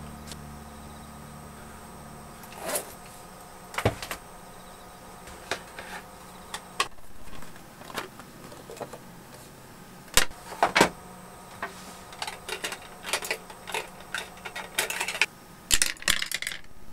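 Clicks and knocks of a folding watercolour palette being handled and opened, and a brush tapping and dabbing in its paint wells, irregular and close-up. Background music fades out about two seconds in.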